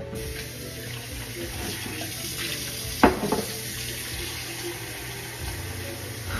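Kitchen tap running steadily, filling a bowl with cold water, with one sharp knock about three seconds in.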